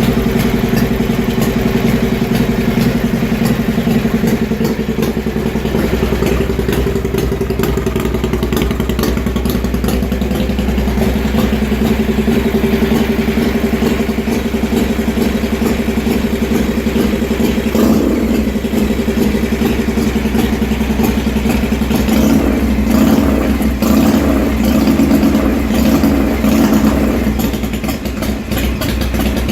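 Harley-Davidson 80 cubic inch (1340 cc) Evolution V-twin with an Andrews EV3 cam and true dual exhausts, running at a steady idle on its first startup after a top-end rebuild. The throttle is blipped once about eighteen seconds in, then several more times over the following ten seconds.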